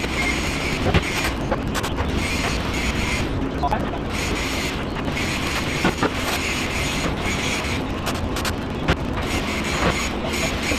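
Metal fabrication work: a steady machine noise that comes and goes in spells of about a second, with scattered sharp clicks and knocks of metal.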